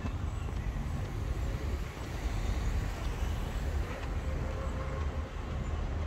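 Street traffic passing on a town avenue, heard as a steady low rumble.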